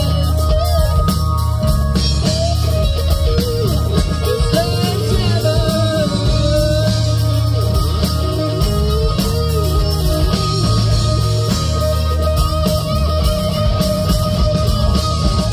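Live rock band playing: electric guitars, bass guitar and drum kit, with a wavering lead melody line over a heavy low end.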